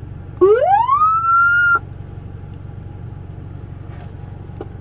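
Yhaavale aftermarket electronic police siren giving one short rising wail that climbs steeply from low to high, holds its top note briefly and cuts off abruptly, over a steady low hum, with a faint click near the end.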